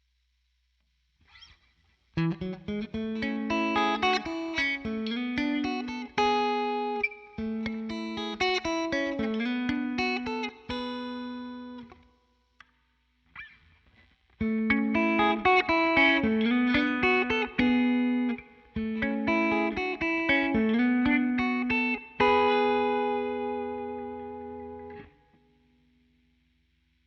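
Electric guitar with Zexcoil Legacy Signature P90-size pickups in coil-cut mode, played clean through a Helix Twin Reverb amp model. Two passages of picked notes with a short pause between them, ending on a chord that rings out and fades.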